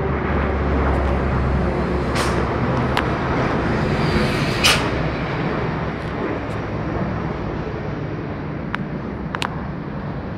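Formation of military aircraft flying overhead: a steady low engine drone that slowly fades over the second half, with a few sharp clicks.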